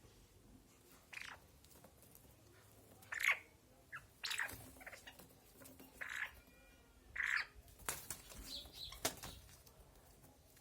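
Chukar partridge calling in short notes, about five calls spread over the few seconds, with a couple of sharp clicks or knocks near the end.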